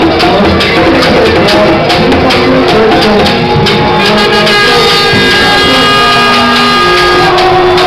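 Drums beating a steady rhythm in a street protest march, joined about four seconds in by long held notes.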